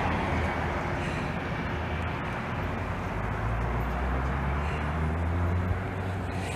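Road traffic: a vehicle engine's low rumble, swelling about halfway through and easing off near the end.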